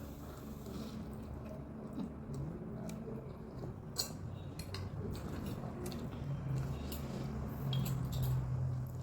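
Eating ramen noodles: wet, squishy chewing with scattered light clicks of utensils against the bowl, one sharper click about four seconds in.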